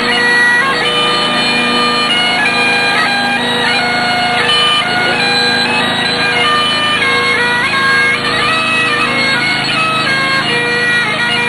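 Highland bagpipes playing a tune: a melody of held notes stepping up and down over steady, unbroken drones.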